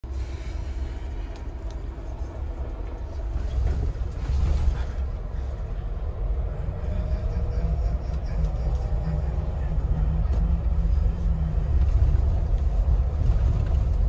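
A Mahindra Thar driving on a road, heard from inside the cabin: a steady low rumble of engine and tyres that grows a little louder as it goes.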